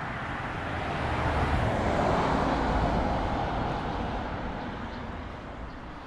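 A car passing along the street, its tyre and engine noise swelling to a peak about two to three seconds in and then fading away.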